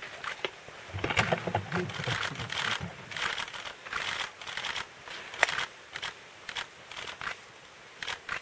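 Leaves and twigs rustling, with irregular sharp clicks and snaps scattered through.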